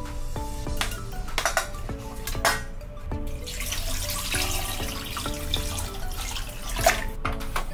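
Water poured from a glass jug into a stainless steel pot of raw beef pieces, a steady splashing pour through the second half. Before it, a few light knocks, and a sharp knock near the end; background music plays throughout.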